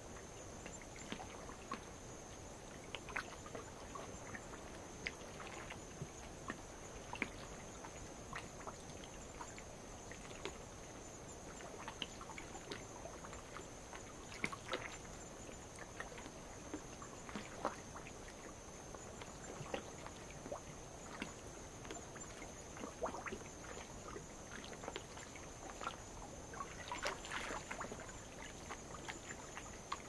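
Night insects trilling in one steady high-pitched drone over light waves lapping and trickling against lava rock, with scattered small splashes and drips and a short flurry of splashing near the end.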